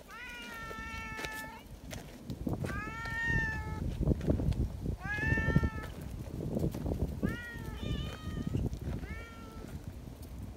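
Free-roaming cats meowing in greeting: a run of about five drawn-out meows, the first and longest lasting over a second, with low scuffing and rustling underneath.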